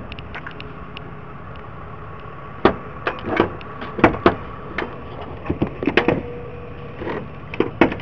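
Irregular sharp clicks and knocks, about a dozen in the second half, over a steady low hum.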